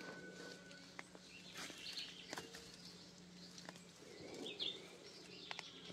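Faint scattered rustles and small snaps of seedlings being pulled up by hand, with a few faint bird chirps.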